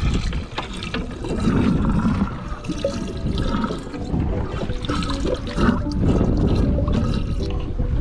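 Water sloshing and splashing in a boat's live bait well as a hand stirs through it to catch a live shrimp.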